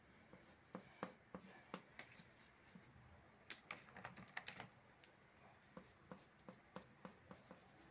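Faint, irregular light taps and clicks of a paintbrush working paint onto paper, a few a second, with a quicker run of taps a little past the middle.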